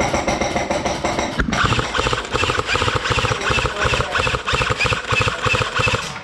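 Airsoft electric gun firing long full-auto bursts: a rapid, even rattle of shots with the gearbox whine over it, breaking off briefly about a second and a half in.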